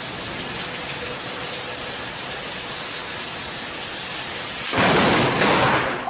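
Heavy rain in a thunderstorm, a steady hiss. About five seconds in, a sudden, louder rush of storm sound lasts for about a second.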